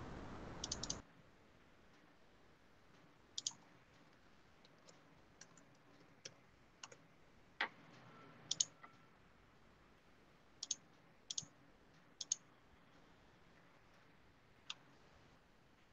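Faint low hiss that cuts out about a second in, then scattered short clicks, a dozen or so at irregular intervals, over a near-silent video-call line.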